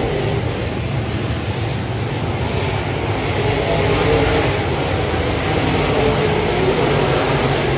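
A field of open-wheel dirt modified race cars running laps, their V8 engines blending into a loud, steady drone.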